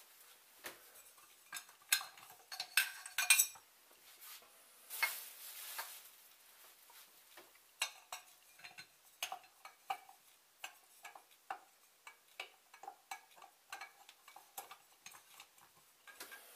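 A glass filament LED bulb with a metal bayonet cap being handled by gloved hands at a lampholder: a run of small clicks, clinks and scrapes, loudest between about two and three and a half seconds in, with a short rustle about five seconds in.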